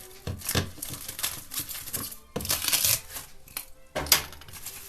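Plastic cling film crinkling and rustling in irregular spells as it is wrapped and rolled around marinated chicken to form a shawarma log. The rustling is heaviest about two and a half seconds in, and there is a sharp tap just after four seconds.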